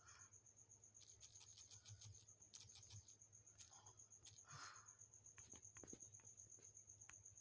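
Near silence: a faint steady high-pitched whine with scattered faint clicks and a low hum.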